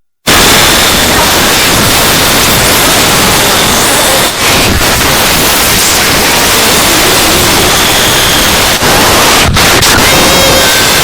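Loud, harsh static-like noise filling all pitches, cutting in after a brief instant of silence at the start, with faint steady tones drifting through it.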